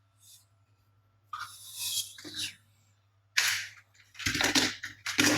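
Handling noise: irregular bursts of rustling and clattering, starting about a second in and coming more often near the end.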